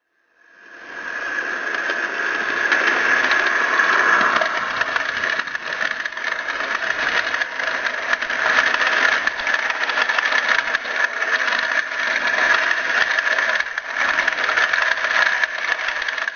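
Hornby InterCity 125 model train running past at close range: a steady high electric-motor whine over a continuous rattle of wheels on the track. It fades in about half a second in and starts fading out near the end as the rear power car goes by.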